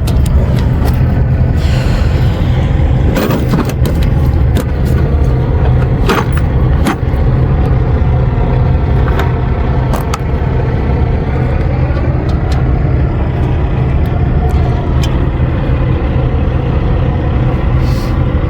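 A diesel truck engine idles with a steady low rumble. Over it, metal tools clink and click at irregular moments as a socket and wrench work the bolts on the APU's belt tension bar.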